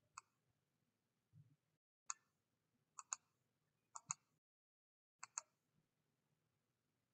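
Faint computer mouse clicks, about eight in all, several in quick pairs, as settings are changed in a software dialog.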